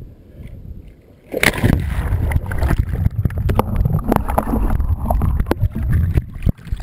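A kayak capsizing: a sudden splash about a second in, then loud, muffled churning and bubbling of water with knocks against the hull while the boat is upside down and the microphone is underwater. The sound cuts off sharply near the end as the microphone comes back out of the water.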